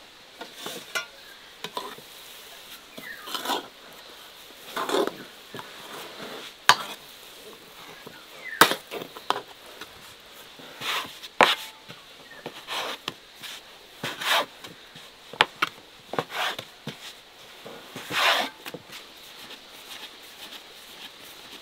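Kitchen work sounds: irregular sharp clicks and knocks with short scraping swishes, as utensils, dishes and wooden surfaces are handled. The sharpest knocks fall about 7 and 9 seconds in.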